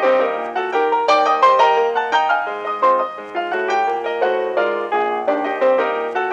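Piano music: a steady flow of single struck notes and chords, several a second, each ringing and fading.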